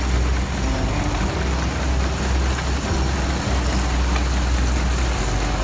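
Antique steam traction engine running, its flywheel driving a long flat belt: a steady low rumble with mechanical noise throughout.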